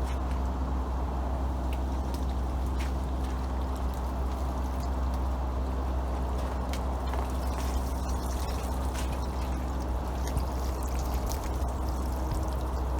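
Boiling water poured in a steady stream over an iced-over tarpaulin, a continuous even splashing, with a steady low rumble underneath.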